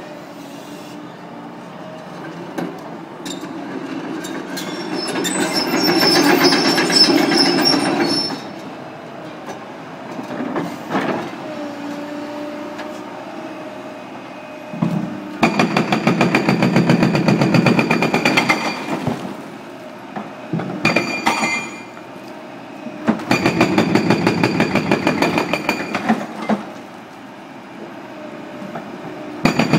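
Excavator's engine and hydraulics running, swelling for a few seconds early on. In the second half, a hydraulic breaker on the excavator's arm hammers concrete in two bursts of rapid, evenly spaced blows, each lasting a few seconds.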